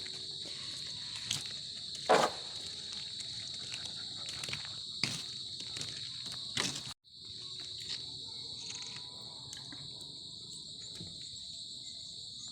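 Steady high-pitched insect chorus, like crickets, with a few short knocks, the loudest about two seconds in. The chorus breaks off for an instant about seven seconds in and then carries on.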